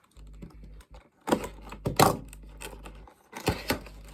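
Cardboard toy box being handled and opened: a run of sharp taps and clicks, loudest about two seconds in.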